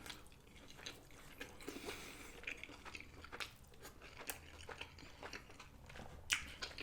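Close-up chewing of a steak and cheese sub: soft wet mouth clicks and crunches of lettuce and bread, scattered unevenly, with one sharper click about six seconds in.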